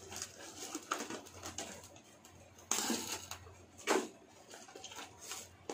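Utensils and food containers clinking and scraping while rice is scooped and packed in: a string of short clatters, the loudest about three and four seconds in.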